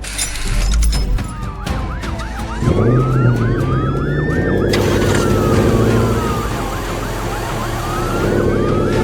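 Emergency vehicle sirens wailing, several overlapping pitches sliding up and down, with a faster yelping siren among them. From about three seconds in, a low vehicle engine hum runs underneath and steps up in pitch.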